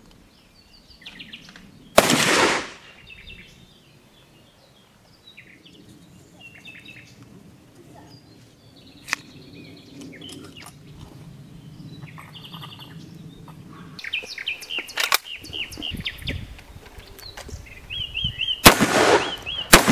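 Small birds chirping, with a loud sudden crack about two seconds in and small clicks of hands working the pepperbox's barrel cluster as it is loaded. Near the end comes a loud black-powder shot from an Allen & Thurber pepperbox percussion revolver, with a short echo.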